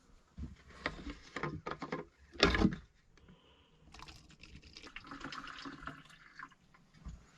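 A few knocks and handling noises, the loudest a thump, then water pouring or splashing into a container for a couple of seconds.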